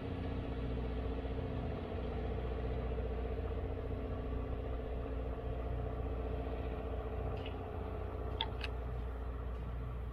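Electric regional train pulling away from the station: a steady low rumble of wheels on the track with a motor hum that thins as it recedes. A few short high chirps come near the end.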